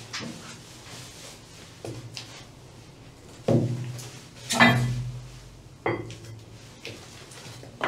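Hand-handling knocks and clatters as a metal tool and a round cover disc are picked up and set down on the deck around a shaft alley hatch. There are a few short knocks, the loudest about halfway through, over a low steady hum.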